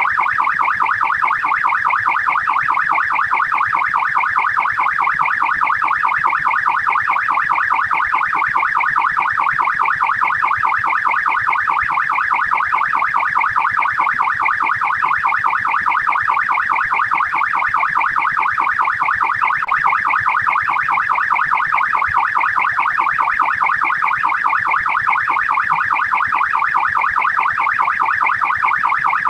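Australian police siren on its fast yelp setting: a rapid rising-and-falling electronic tone, repeating over and over at a steady level.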